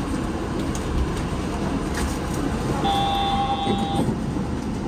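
Steady low hum and rumble of a Yurikamome 7500-series automated train stopped at a platform. About three seconds in, an electronic beep lasts about a second.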